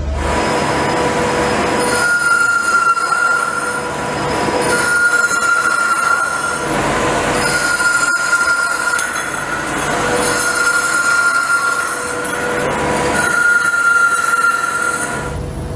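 Metalworking machine running with a continuous hiss, and a high metallic squeal that sounds five times for about two seconds each, at a roughly even pace.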